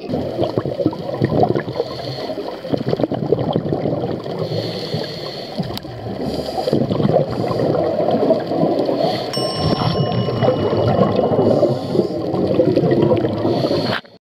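Underwater sound of scuba divers' regulators: a dense crackling gurgle of exhaled air bubbles, with short hisses recurring now and then. A faint steady high tone joins about nine seconds in, and everything cuts off abruptly near the end.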